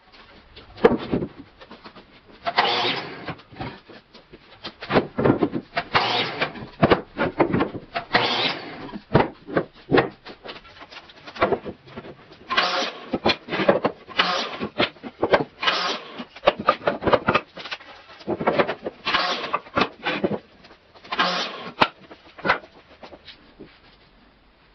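Power miter saw crosscutting 2x4 softwood boards to length: a series of short cuts, each under a second, with knocks and clatter of boards being set against the fence between them.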